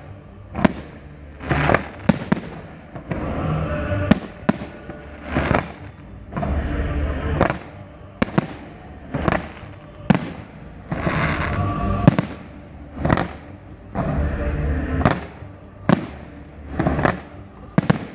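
Fireworks display: aerial shells bursting in a steady run of sharp bangs, about one every second, with crackle between them.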